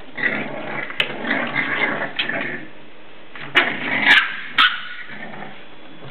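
Seven-week-old English Bulldog puppies playing and barking: a stretch of small puppy vocal sounds, then three short, sharp barks in quick succession about midway.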